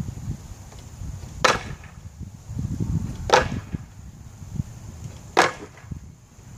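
Metal bar of a homemade wooden salmon ladder clacking down onto the wooden rungs three times, about two seconds apart, as the bar is jumped up rung by rung.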